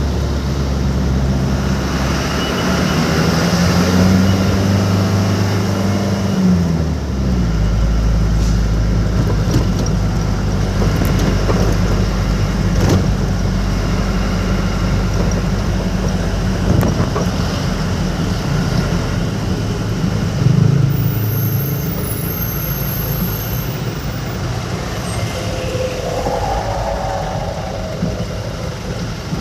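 Truck engine running on the road, its note shifting about seven seconds in, over a steady rush of road noise.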